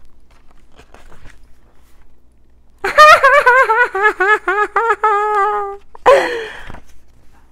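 A woman laughing in a run of rhythmic 'ha-ha' pulses, about four a second, lasting about three seconds. Right after it comes a short, breathy wailing cry that falls in pitch, like mock sobbing.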